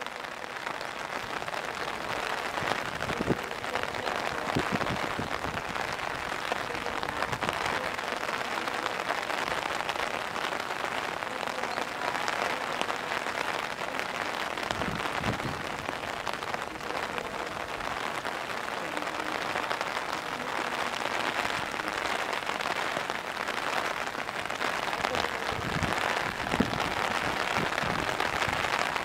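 Heavy rain pouring down: a steady, dense hiss of drops on the ground and surfaces, with a few louder low thuds scattered through it.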